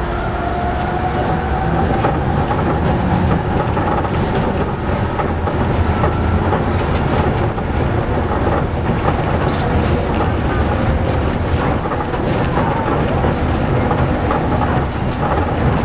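An Astram Line rubber-tyred automated guideway train running at speed along its elevated concrete guideway, heard from inside the cab as a steady rumble.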